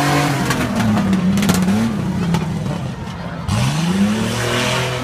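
Pickup truck's engine revving hard on a dirt tough-truck course. Its pitch falls and wavers as it takes a tight turn, then climbs steeply about three and a half seconds in as the truck accelerates away.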